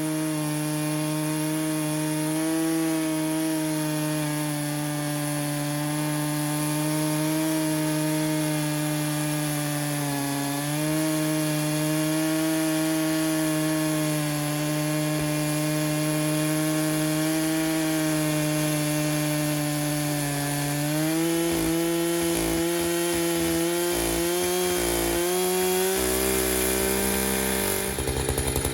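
Echo CS-590 two-stroke chainsaw on a homemade chainsaw mill, running steadily under load as its full chisel chain crosscuts a large red oak log. Its pitch steps up about 21 seconds in and changes again near the end as the load eases.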